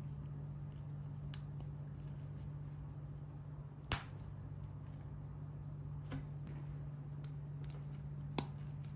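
Plastic LEGO pieces clicking and snapping together as they are assembled by hand: one sharp snap about four seconds in and several fainter clicks, over a steady low hum.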